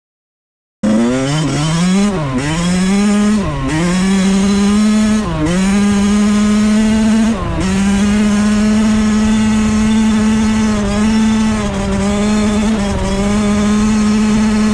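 Suzuki RM85's single-cylinder two-stroke engine comes in about a second in, accelerating hard with a sharp dip in pitch at each of four quick upshifts. It then holds at steady high revs in fifth gear.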